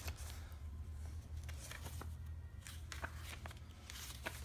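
A glossy paper catalogue booklet being handled and its pages turned: soft rustles and light scattered clicks, over a low steady hum.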